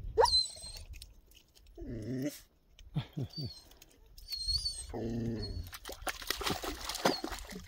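Australian shepherd whining in several short high-pitched, wavering bouts, with a few lower whimpers between them. A stretch of clicks and rustling comes near the end.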